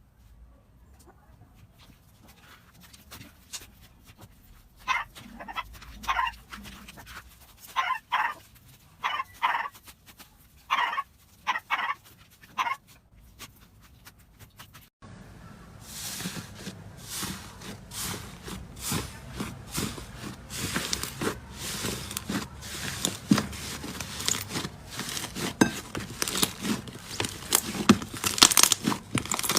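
Slime being played with: short squelching bursts, often two close together, then from about halfway a dense, continuous crackling of tiny pops and clicks as the slime is pressed and stretched.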